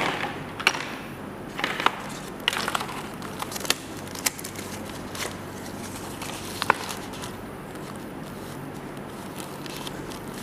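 Cardboard box and paper CD sleeve being handled: rustling and crinkling with scattered sharp clicks and taps, busiest in the first few seconds, quieter after about seven seconds.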